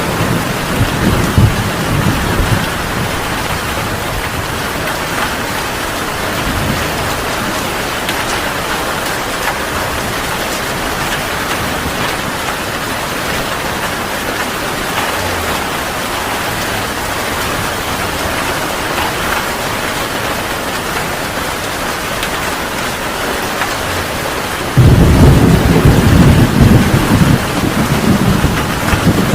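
Heavy rain falling steadily in a thunderstorm. Thunder rumbles and fades in the first couple of seconds, and a loud roll of thunder breaks in abruptly near the end.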